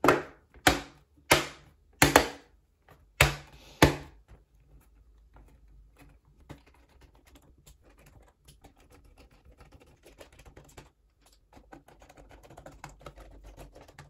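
Plastic bottom cover of a Lenovo IdeaPad S145 laptop snapping into its clips as it is pressed down around the edges: about seven sharp clicks in the first four seconds, then faint handling and light tapping.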